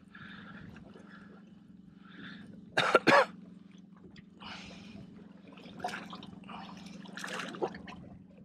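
A person coughs twice in quick succession about three seconds in, over a steady low hum and softer scattered noises.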